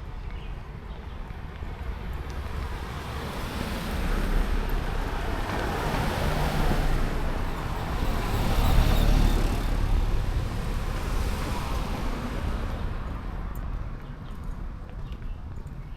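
A car driving past on a residential street: engine and tyre noise swell for several seconds, peak about nine seconds in, then fade away.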